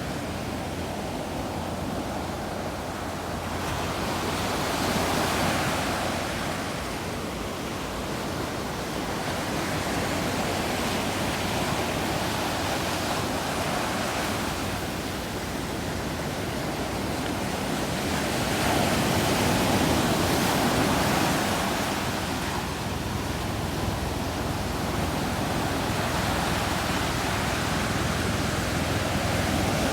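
Ocean surf breaking on a sandy beach, a continuous wash that swells and eases as each wave comes in, with the strongest break about two-thirds of the way through.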